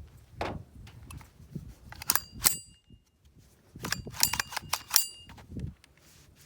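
Light metallic clinks of small metal objects knocking together, each with a brief high ringing tone, in a cluster about two seconds in and another about four to five seconds in.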